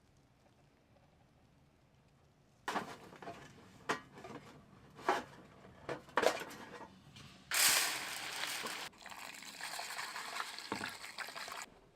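Near silence for a couple of seconds, then a string of clicks and knocks from camp cookware and utensils, with a short burst of water noise about two-thirds of the way in.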